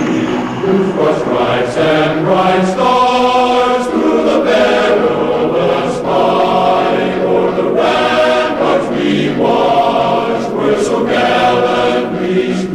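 A choir singing a national anthem in slow, held phrases.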